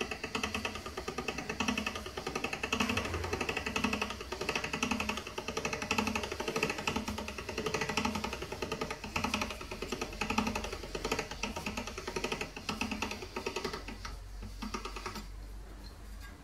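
Hand-cranked stainless steel pasta machine being turned as a sheet of dough is rolled through it: a fast rattling clatter of the gears and rollers, pulsing about twice a second, dying away near the end.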